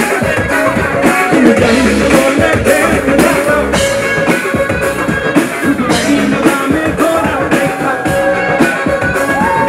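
A live band playing a loud rock-style pop song: a man singing over electric guitar and drums.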